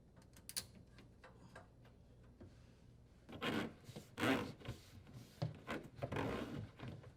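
Dishwasher drain hose being disconnected and fed through the cabinet: a few faint clicks, then from about three seconds in a series of rubbing, scraping sounds as the hose slides against the cabinet.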